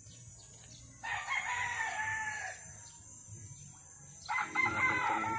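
A rooster crowing twice, each crow about a second and a half long, the second beginning about four seconds in.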